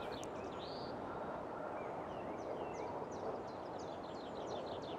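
Outdoor ambience: a steady low hiss with faint bird calls, short chirps that come thicker in the second half.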